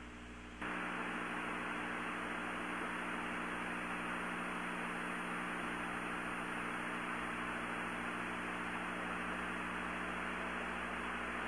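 Steady hiss with a low hum and a faint high whine from an open broadcast audio line carrying no speech. It jumps louder just under a second in, then holds steady.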